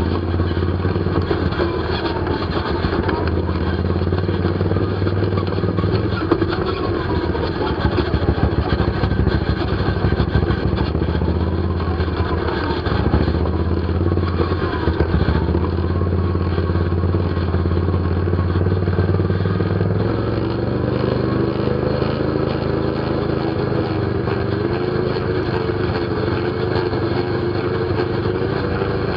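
ATV engine running continuously while riding, with the engine note changing about twenty seconds in.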